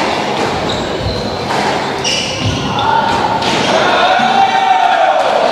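Squash rally in a large hall: the ball struck by rackets and smacking off the walls, with court shoes squeaking on the floor. The rally ends partway through, and a person's voice calls out near the end.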